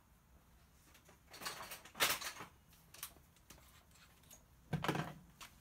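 Small tools being handled on a workbench: a cluster of sharp clicks and rattles about a second and a half in, a single click around three seconds, and a short thump near the end.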